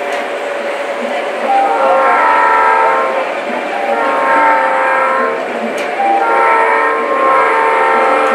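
Model train horn sounding several long chord-like blasts over a steady background noise.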